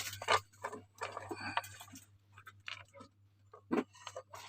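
Irregular clicks and short rustles of packaging being handled while a parcel is unpacked, with a faint steady hum underneath.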